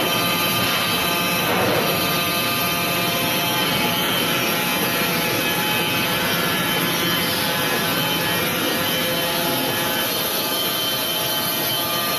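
Industrial band sawmill running: a loud, steady machine sound with several constant whining tones over a dense noise.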